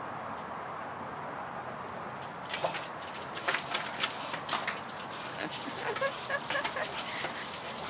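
Ice water poured from a plastic tub over a seated person: splashing, with ice cubes clattering and hitting in a quick irregular run from about two and a half seconds in. Near the end, short high-pitched vocal yelps join the splashing.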